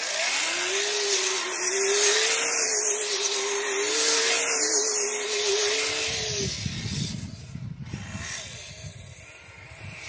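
Kyosho Blizzard RC snow tracker's twin Traxxas Titan 380 electric motors whining under load as it spins donuts, with its plastic tracks churning the snow. The whine climbs in pitch at the start and holds for about six seconds, then stops, leaving a quieter low rumble of the tracks.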